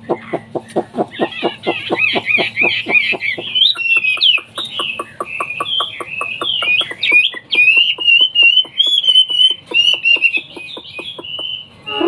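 Caged Chinese hwamei (wambi) singing: a loud, varied run of whistled and slurred phrases, settling into a string of repeated whistles near the end. Underneath, a rapid series of short low pulses, about four a second, keeps time through most of it.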